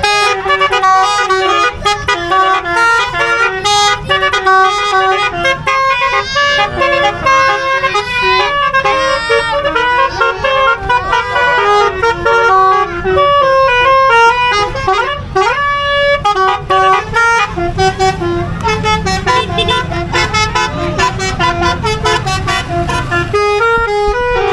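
Telolet-style musical vehicle horns (basuri horns) playing quick melodies, several sounding over each other. A few rising pitch sweeps come in around the middle, and a low engine rumble runs under the last part.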